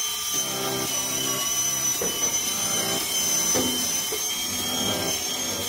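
i-scrub 21b cordless mini scrubber running, its twin rotating brush heads scrubbing a tile floor, with a steady high motor whine.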